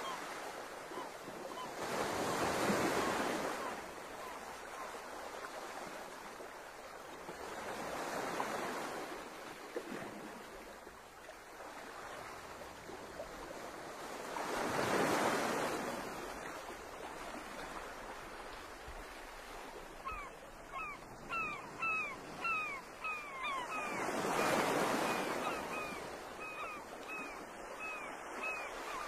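Sea water washing against a quay, a steady hiss that swells up four times, several seconds apart. In the last third a short high chirp repeats about twice a second.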